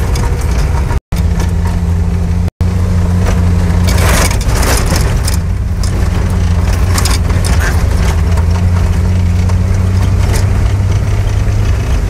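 A vehicle's engine drones steadily from inside the cabin while its tyres run over a rough gravel track, with scattered crunching and rattling. The sound cuts out completely twice, briefly, in the first few seconds.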